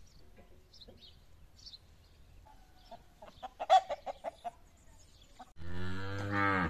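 Hens clucking in a short run, with faint bird chirps, then a cow moos once loudly near the end, cut off abruptly.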